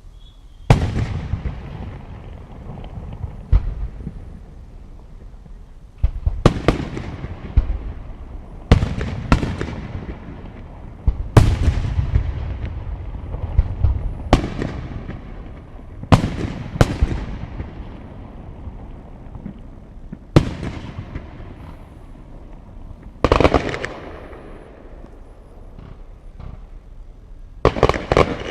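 Aerial fireworks display: a series of sharp bangs, some in quick doubles and triples, each followed by a rolling echo that dies away over a few seconds.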